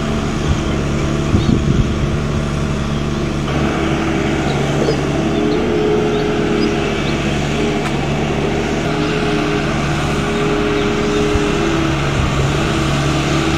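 Diesel engine of a single-drum smooth-drum road roller running steadily as the machine drives over compacted soil. About three and a half seconds in, the sound grows fuller, with a higher wavering hum added over the low engine note.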